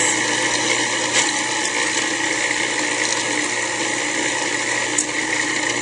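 Cuisinart Pro Classic food processor motor running steadily, its blade chopping a packed bowl of raw cauliflower, parsnip and almonds. The full bowl is slow to process, which the cook puts down to how much is in it.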